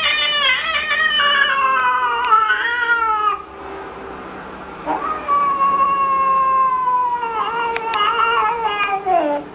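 A cat yowling in two long drawn-out calls, each sliding down in pitch. The first ends about three and a half seconds in, and the second starts about five seconds in and drops sharply at its end.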